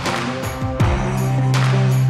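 Background music: sustained tones over a held low bass note, with a few sharp drum hits.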